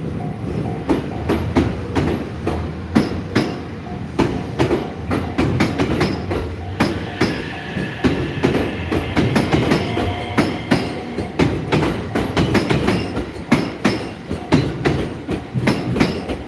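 A train passing over a level crossing, its wheels clattering over the rail joints in a dense, irregular run of clicks and knocks above a steady rumble.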